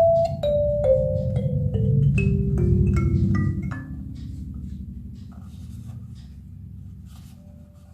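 Molioon 17-key kalimba played down its scale, one tine plucked after another from high to low at about two to three notes a second, the lowest note left ringing out; one soft note is plucked near the end.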